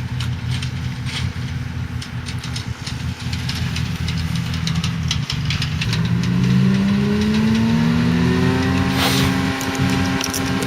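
Heavy diesel farm machinery running, its engine note rising smoothly from about six seconds in as it revs up and then holding high. Light rattling clicks in the first half and a brief hiss about nine seconds in.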